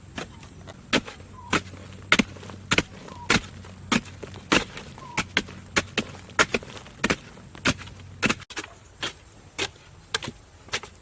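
Repeated chopping: a blade striking wood or bamboo with sharp blows at an even pace, about one every half-second or so.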